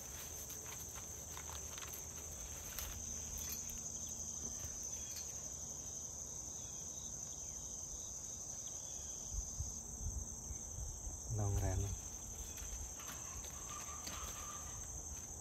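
Steady high-pitched insect chirring that goes on throughout, with a brief low voice about eleven seconds in.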